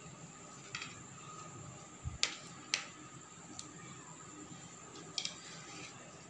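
A knife cutting through a bread omelette on a plastic plate: a few short clicks and scrapes as the blade meets the plate, the sharpest two about half a second apart between two and three seconds in.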